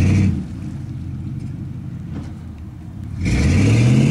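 Two-stroke engine of a 1975 snowmobile revving with a high whine, dropping back to a low idling rumble about half a second in. Near the end it revs up again, its pitch climbing quickly and then holding high.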